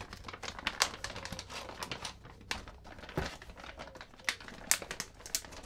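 Crinkling and rustling of a foil-backed plastic zip-lock pouch being handled, with many irregular sharp crackles as soft plastic lures are put back inside it.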